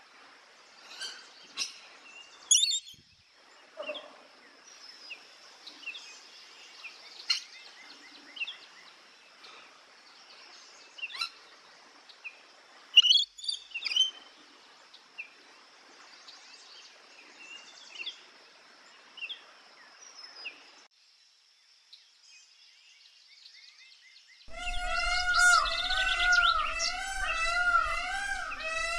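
Rainbow lorikeet giving short, sharp screeching calls at scattered moments over faint outdoor background, the loudest a pair about 13 seconds in. Near the end a different, louder run of repeated rising-and-falling pitched notes takes over.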